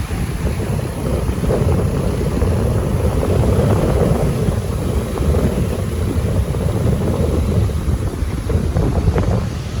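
Wind buffeting a phone microphone in a loud, gusting low rumble, with the wash of sea waves underneath.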